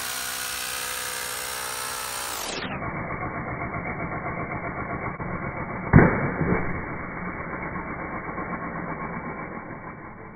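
A cordless drill running steadily, driving the pump that pressurizes a plastic-bottle water rocket. About six seconds in comes one sudden loud burst as the rocket releases and launches, followed by a brief rush.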